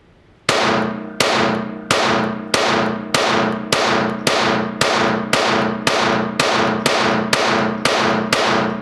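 Kel-Tec P17 .22 LR pistol fired in a steady string of about fourteen shots, roughly one and a half a second, each crack ringing off the walls of an indoor range.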